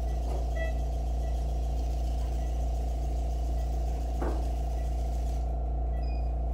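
Steady low hum of operating-room equipment, with an even hiss over it that stops about five and a half seconds in. Faint short high beeps come every half second to a second.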